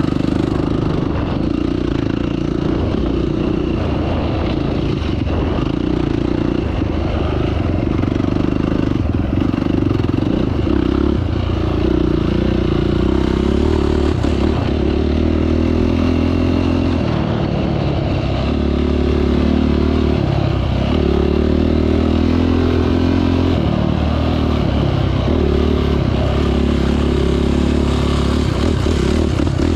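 A 450-class single-cylinder off-road engine running continuously under varying throttle, its pitch stepping up and down as it rides the trail, with some rattle and scrape from the machine.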